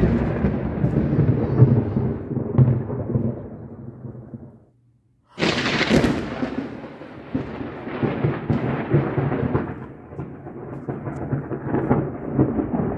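Thunder rumbling and dying away about four and a half seconds in. After a brief gap, a sudden crack of thunder is followed by a long rolling rumble.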